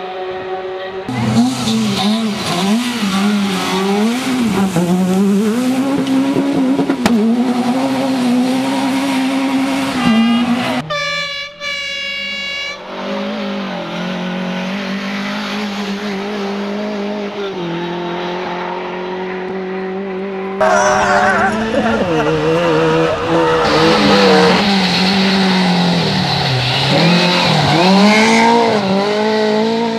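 Competition car engines revving hard, the engine note rising and falling with throttle and gear changes, in several clips cut together with abrupt changes about a second, ten seconds and twenty seconds in. Around eleven seconds a brief high-pitched rising engine whine stands out.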